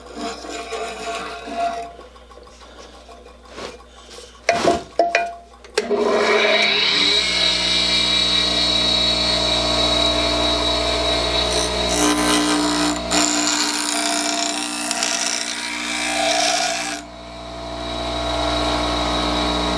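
Bench grinder starting up about six seconds in after a few knocks of handling, then a hedge shear blade ground against its wheel to sharpen the dull edge: a steady hiss with a high ring over the motor's hum. The grinding stops sharply near the end while the motor keeps running.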